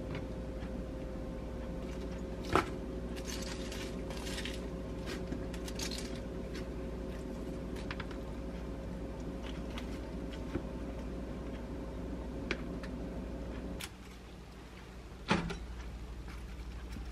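Food-prep handling noises: tomato and carrot slices being moved around on a wooden cutting board, with soft rustling and small clicks over a steady hum, and two sharper knocks, one about two and a half seconds in and one near the end. The hum drops away about fourteen seconds in.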